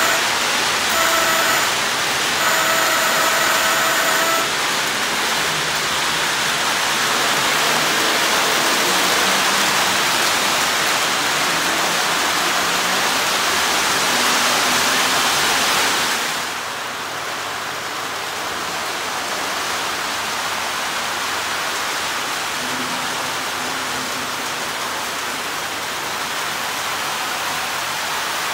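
Lionel O-gauge trains running on three-rail track, a steady loud roar of wheels and motors that drops to a quieter, duller sound about 16 seconds in. Near the start a Lionel diesel horn sounds three times, the last blast the longest.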